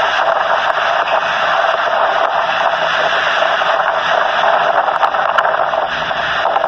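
Strong wind rustling through tree leaves: a steady, even hiss.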